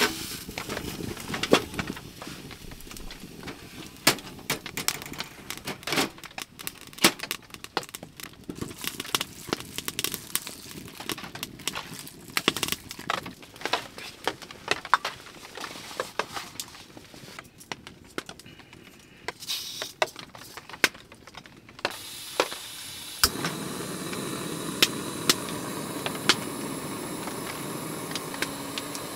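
Wood fire crackling and popping in a small tent wood stove, mixed with scattered clicks and knocks of gear being handled. About 22 seconds in a canister gas stove is turned on, with a sharp ignition click a second later, and its burner then hisses steadily.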